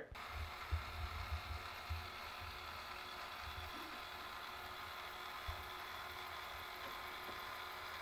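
Robot vacuum running with a steady whir from its motors and spinning side brushes as it drives onto its self-emptying dock, with irregular low bumps underneath.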